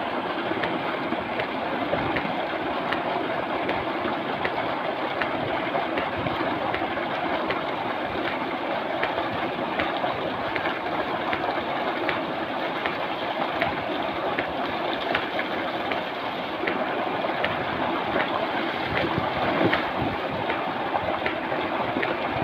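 Tubewell outlet pipe pouring a heavy, steady stream of water into a concrete tank, the water rushing and churning, with occasional small splashes from a bather moving in it.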